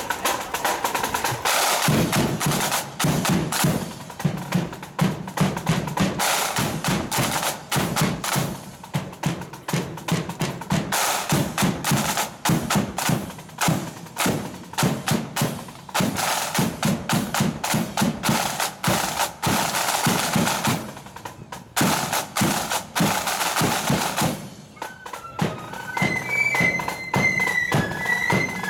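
A marching flute band's snare drums and bass drum playing a fast marching beat with rolls, starting sharply. Near the end the drums drop back and the flutes come in with a tune.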